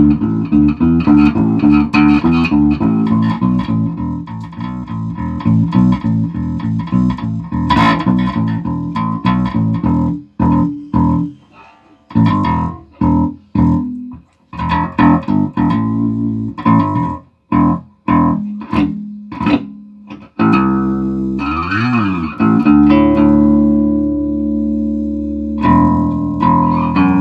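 Electric bass guitar played through an EBS MultiComp compressor pedal that is being sound-tested after repair. A run of quick notes gives way to short, separated notes with brief silences between them, then a slide down and back up in pitch, and held notes that ring to the end.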